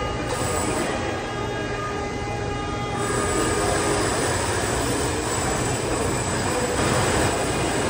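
Construction noise, extraordinarily loud: a steady, continuous noise with thin, high squealing tones that stop about three seconds in.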